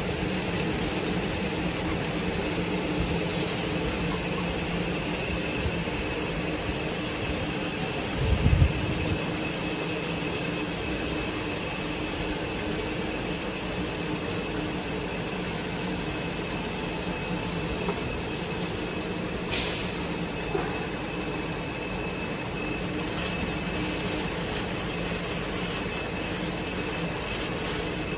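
Automatic bottle capping and labeling line running: a steady mechanical hum of conveyors and machine drives with several steady tones, one faint and high-pitched. A low thump comes about eight seconds in, and a brief sharp sound about twenty seconds in.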